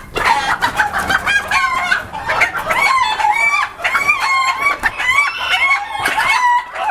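A flock of fancy-breed chickens clucking and calling over one another, with roosters crowing among them.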